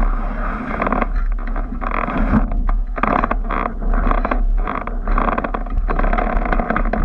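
Wind buffeting the microphone of an action camera mounted atop a sailing canoe's mast: a steady deep rumble with irregular surges of noise and a few knocks from the mast and rigging.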